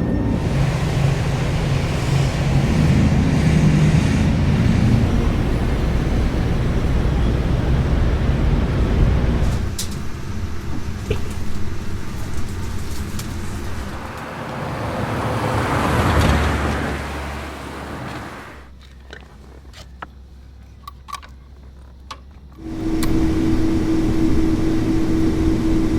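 Short transportation field recordings cut one after another: motor vehicle and traffic noise, with a swell that rises and falls about sixteen seconds in. Then a brief quiet stretch with a few clicks, and near the end a steady rumble carrying one held tone.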